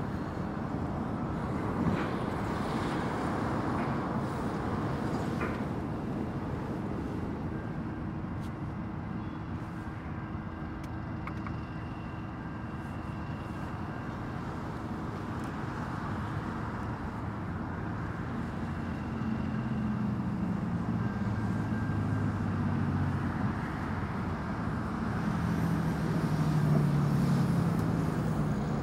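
Steady traffic noise from cars and trucks passing on a highway, with a heavy vehicle's low engine note growing louder in the last ten seconds.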